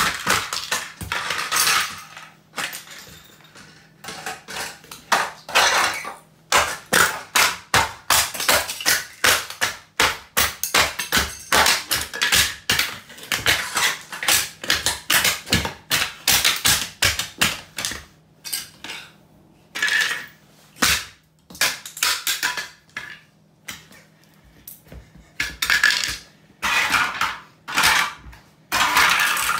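Cofra steel-toe rubber boots stomping a hard orange plastic toy on a tiled floor: sharp cracks and crunches of plastic breaking, with fragments clattering on the tiles. The stomps come in rapid runs with short pauses between.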